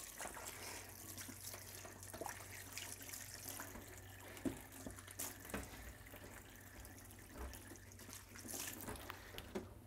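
Faint running water from a kitchen tap, with a few small clicks and knocks and a low steady hum underneath.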